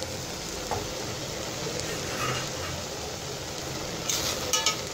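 A pot of chana dal simmering on the stove with a steady sizzling hiss as its last bit of water cooks off. Near the end come a few sharp metallic clinks.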